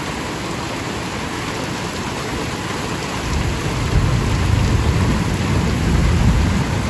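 Heavy rain pouring steadily onto a porch roof, with a deep low rumble coming in about three seconds in and lasting almost to the end.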